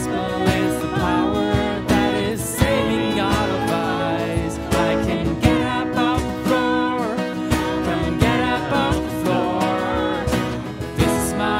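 Live worship song: a strummed acoustic guitar and a keyboard, with a woman singing.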